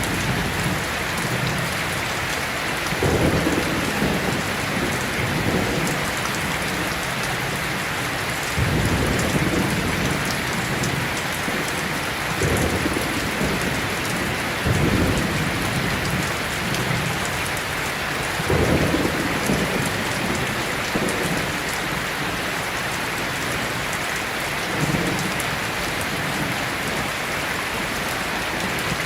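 Steady rain falling, with low rolls of thunder rumbling every few seconds.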